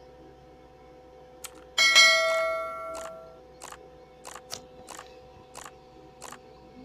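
A bright bell-chime notification sound effect rings out about two seconds in and fades over a second or so. Several short clicks follow, over a faint steady hum.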